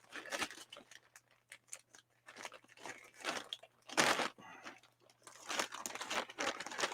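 Package wrapping being torn open and crinkled by hand, in irregular rustles and rips that come in bunches about halfway through and again near the end.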